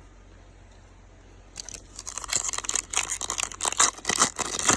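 Donruss baseball card pack wrapper being torn open and crinkled by hand. It starts about a second and a half in with a rapid run of crackles and rips.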